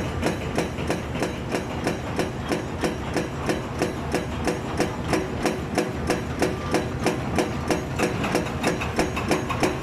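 Excavator-mounted hydraulic breaker hammer pounding in a fast, even rhythm of sharp blows, a few a second, over the steady low running of the machine's engine.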